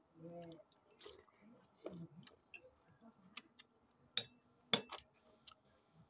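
Table eating sounds: metal spoons clinking and scraping against ceramic bowls and plates in scattered sharp ticks, the loudest two a little past four seconds in, with quiet chewing between. A brief murmured voice just after the start.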